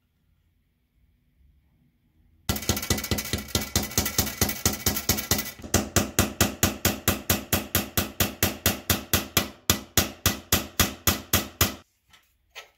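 Rapid, rhythmic hammer taps of metal on metal with a ringing steel tone, a tool being driven against the old handsaw's handle fastening to work it loose, which is tough going. The taps start about two and a half seconds in, come very fast at first, then settle into about five strokes a second and stop near the end.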